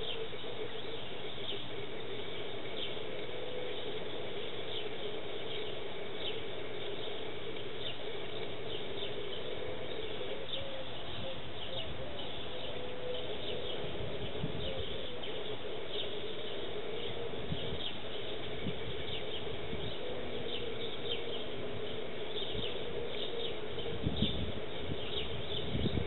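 Sparrows chirping over and over in short, high notes, over a steady low hum.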